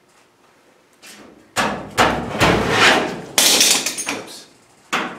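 A run of loud knocks and clatter of things being handled, lasting about three seconds, then one more sharp knock near the end.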